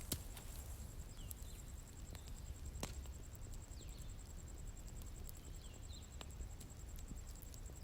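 Bonfire burning with a low steady rumble and sparse sharp crackles and pops, a second or more apart. Behind it an insect trills steadily at a high pitch, and a few birds give short chirps.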